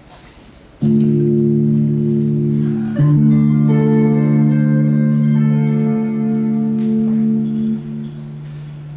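Amplified guitar sounding held chords with steady, unfading sustain. A chord starts suddenly about a second in, a fuller chord comes in about three seconds in, and the level drops back just before the end.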